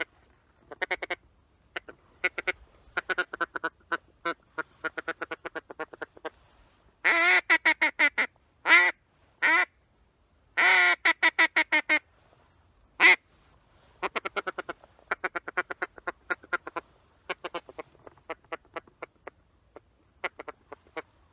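Duck call blown by mouth: runs of short quacks that fall off in loudness, with louder, longer quacks in the middle.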